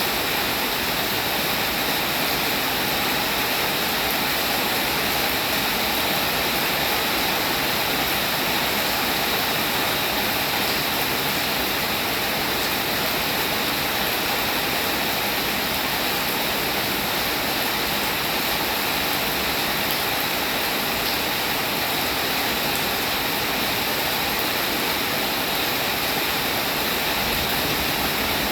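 Steady rain falling, an even, unbroken hiss with no single drops, thunder or other events standing out.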